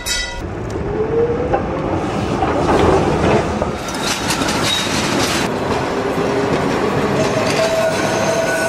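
Electric tram running along the rails, with a rising motor whine about half a second in, wheels clattering over the track in the middle, and a steady whine near the end.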